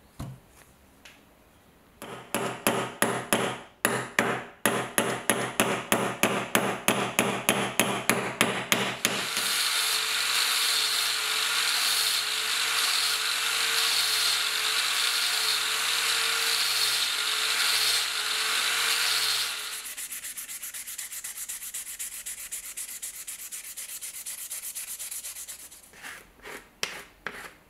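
Rhythmic back-and-forth rubbing strokes, about two or three a second, then an angle grinder with a sanding disc running steadily with a steady whine as it sands down the end of the new wooden hammer handle. Near the end it gives way to quicker, quieter rubbing strokes.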